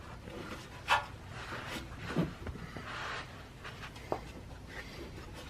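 Sharp clicks and knocks of hand tools against metal, with scraping and rubbing, while a stuck rubber exhaust hanger bushing is worked off its hanger rod. The loudest click comes about a second in, with further knocks near two and four seconds.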